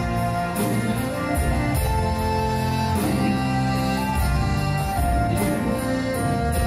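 Scottish folk-rock band playing a slower song live through a theatre PA: a sustained melody over accordion, fiddle, acoustic and bass guitar and a drum kit, with a steady beat of cymbal hits.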